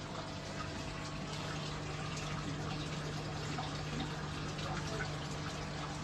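Steady background of trickling, bubbling water with a low steady hum, from aquarium filters and pumps running in the shop.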